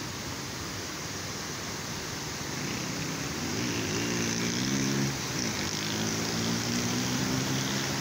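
Water rushing over rock at a small waterfall, a steady hiss. From about three seconds in, a pitched drone comes in over it and shifts pitch a few times.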